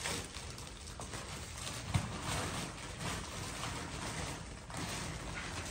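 Rustling and crinkling of a woven plastic sack and the packets inside it as someone rummages through it, with a small knock about two seconds in.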